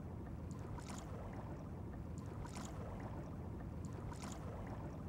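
Steady low rumbling ambience with a faint wash of noise and a few faint scattered clicks.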